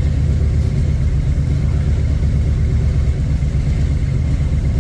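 Jeep J10 pickup's engine idling steadily, a freshly rebuilt carburetor feeding it.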